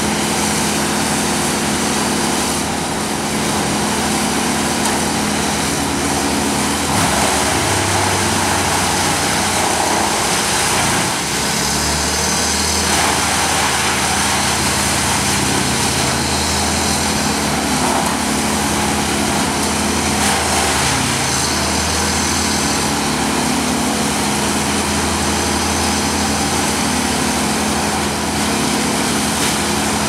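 Engines of tree-service trucks running steadily, their speed stepping up and down a few times, with street traffic passing close by.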